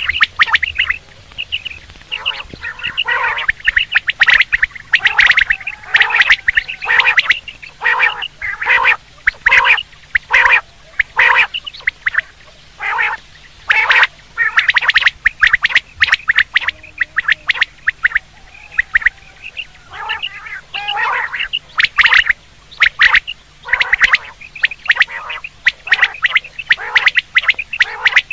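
Quail calling over and over in short, sharp notes, several a second with brief pauses between runs. This is a quail call recording of the kind played to lure birds during hunting season.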